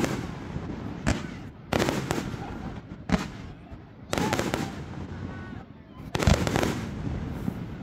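Fireworks bursting in a series of about six sharp bangs, each followed by a short rumble, roughly one every second or two, with the loudest near the end.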